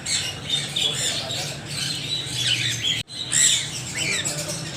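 Several parrots squawking and chirping over one another in quick, overlapping calls, broken by a momentary gap about three seconds in.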